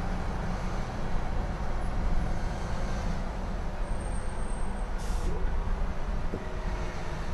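Interior cabin noise of a Scania L94IB bus on the move: a steady diesel engine drone and road rumble, with a brief high hiss about five seconds in.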